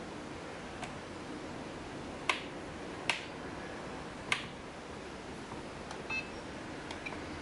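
Plastic switch and button clicks on a FlySky FS-i6 radio transmitter: three sharp clicks about two, three and four seconds in as the SWA dual-rate switch is flipped, and a few softer clicks. Near the end the transmitter gives one short electronic beep.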